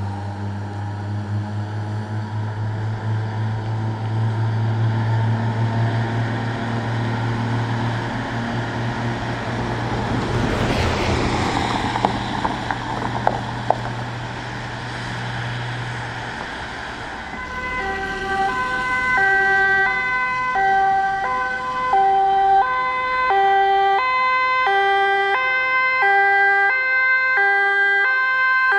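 A heavy vehicle's engine running and passing, then, from about two-thirds of the way in, an emergency vehicle's German two-tone siren (Martinshorn) alternating between a high and a low note, switching about every 0.7 s.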